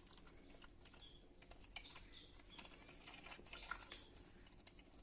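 Faint, scattered light clicks and taps of insulated wires and the plastic extension-board box being handled, as the spare wire is tucked inside the board.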